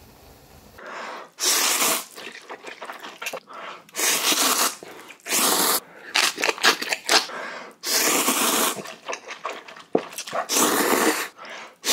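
A man slurping ramen noodles from a bowl of spicy broth: about five long, loud slurps, each lasting about a second, with smaller wet mouth sounds between them.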